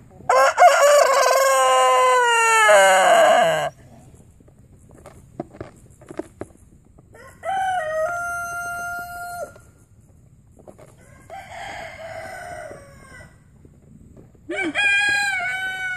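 A Lavender Orpington rooster crows a long, wavering 'yodel' that slides down in pitch at its end. More crowing follows about halfway through, held on one steady note, then a fainter, rougher call, and another crow starts near the end.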